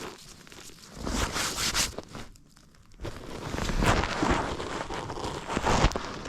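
Rustling and crunching noise in two bursts, one about a second in and a longer one from about three seconds on, with a few sharp knocks near the end.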